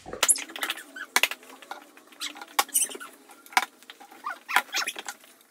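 Someone chewing crunchy snacks (potato chips and crackers): an irregular run of sharp crunches.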